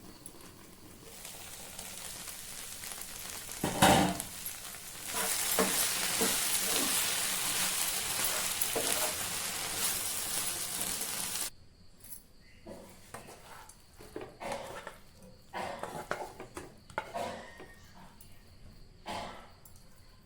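Food sizzling in hot oil in a pan as it is stirred. There is a sharp knock about four seconds in, and the sizzle gets louder after it. The sizzle cuts off abruptly about halfway through and is followed by scattered light knocks and clinks of utensils.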